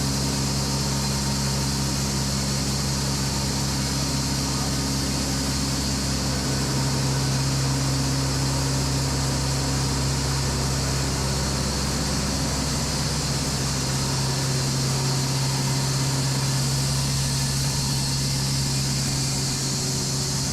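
Echo 45HD2 band sawmill machinery running steadily: a constant low machine drone with a few steady overtones and an even hiss, without distinct knocks.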